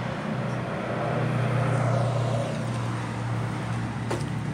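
A motor vehicle passing by, swelling to its loudest about two seconds in and then fading, over a steady low hum. A couple of short clicks come near the end.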